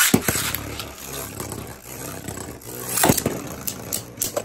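Two Beyblade Burst spinning tops, Poison Hydra and Cho-Z Achilles, are launched with a string launcher at the very start and then whir as they spin and grind around a plastic stadium. Sharp clacks as they collide come just after the launch, about three seconds in, and again near the end.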